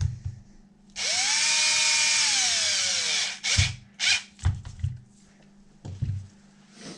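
A handheld power drill/driver runs for about two seconds, its whine rising as it spins up, holding, then dropping as it slows and stops. Several short knocks and clicks follow as parts are handled.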